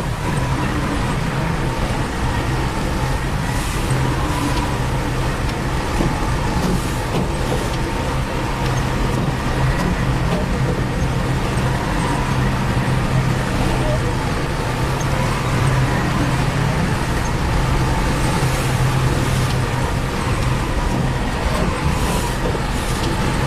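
Heavy diesel engine of a construction machine running steadily: a constant low drone with a faint, steady higher whine above it.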